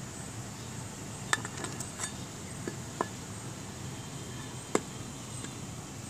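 Sharp metal clinks and knocks from an orange cast-metal robot-joint gearbox being handled and lifted off its metal stand: a quick cluster of clicks, then a single louder knock a little past halfway, over steady background noise.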